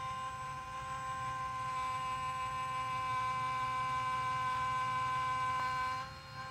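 Yuneec C23 drone camera whining steadily with several high tones over a low hum: the faulty camera is making noise and shaking. Near the end the whine shifts in pitch and drops in level.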